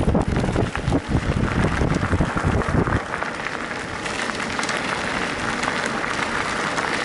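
Wind buffeting the microphone of a riding mountain bike. It cuts off abruptly about 3 seconds in, leaving a steady crackling hiss of bike tyres rolling over a loose, gravelly trail surface.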